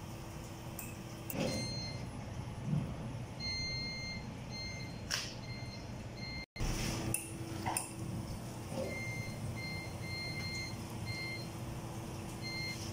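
Sanremo Café Racer espresso machine running with water flushing from its group heads: a steady hum throughout, with runs of short, repeating high electronic beeps and a few light knocks.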